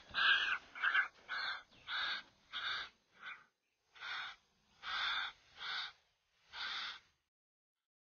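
Young cuckoo's harsh begging calls: about ten rasping calls, close together at first and then more spaced out. It is hungry and begging for food from the hand. The calls stop about seven seconds in.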